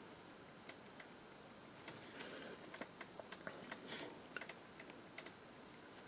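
Faint, irregular small clicks and taps from hands handling a miniature on its paint-pot holder and a fine paintbrush, bunched a couple of seconds in, over a low steady hiss.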